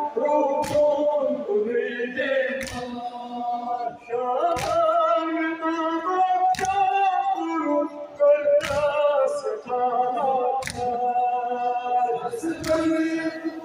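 Group of mourners singing a Kashmiri noha, a Muharram lament, unaccompanied in unison, with a sharp strike keeping time about every two seconds.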